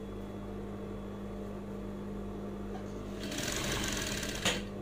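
Industrial sewing machine with its motor humming steadily between seams, then running a short burst of stitching about three seconds in that lasts roughly a second, followed by a sharp click.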